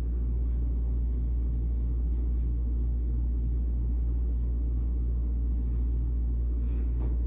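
A steady low hum with no other clear sound.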